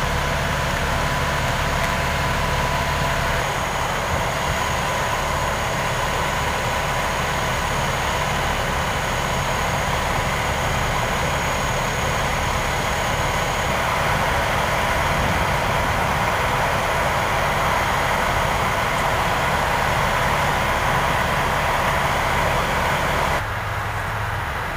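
Steady engine noise of idling emergency vehicles, with a constant faint hum. The sound drops a little and changes abruptly about a second before the end.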